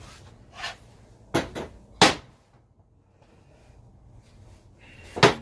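Steel parts of an old blacksmith's leg vice knocking and clanking as the vice is dismantled: several separate knocks, the loudest about two seconds in and another near the end.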